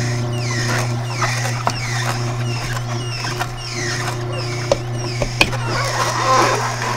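Samson Advanced horizontal single-auger slow juicer running with a steady low motor hum while its auger crushes kale. Repeated squeaky creaks fall in pitch about once or twice a second, with a couple of sharp crunching clicks near the end.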